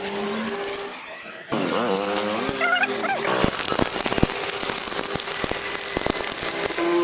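Stick (arc) welding crackling steadily, with many sharp little snaps; a pitched voice or tune sounds over it in the first half.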